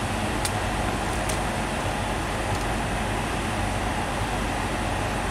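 Electric-locomotive-hauled train approaching: a steady rumble and hum from the locomotive and its rolling stock, with two faint clicks in the first second and a half.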